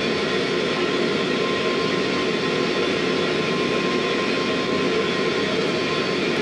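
Propane forge burner running with a steady roar.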